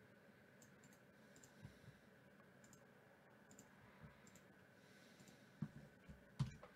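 Faint, scattered clicks of a computer mouse and keyboard over near-silent room tone, the firmest few coming near the end.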